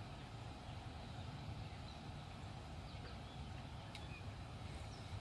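Outdoor ambience by a pond: a steady low rumble with faint, scattered bird chirps, and one sharp click about four seconds in.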